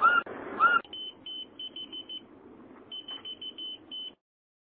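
Two quick rising whistles from a person, then an electronic key finder answering with short high-pitched beeps in two rapid bursts: its whistle-triggered locator alarm going off.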